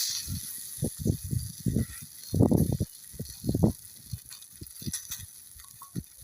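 Wind gusting against the microphone: uneven low rumbling buffets, heaviest about two and a half seconds in, over a high hiss that fades after the first second.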